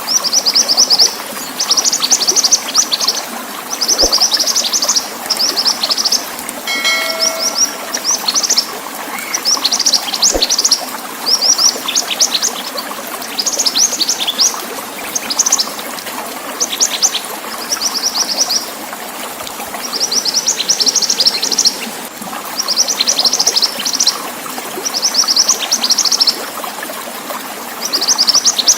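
Mantenan songbird singing in repeated high, fast chirping phrases of a second or two, every couple of seconds, over a steady rush of running water.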